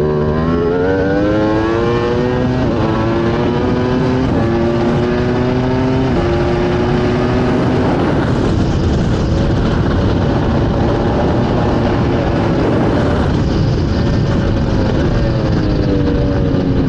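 Ducati Panigale V4 R WorldSBK superbike's V4 engine heard onboard at full throttle. It rises in pitch and drops at each upshift in the first few seconds, is partly masked by wind rush through the middle, and falls in pitch near the end as the bike slows.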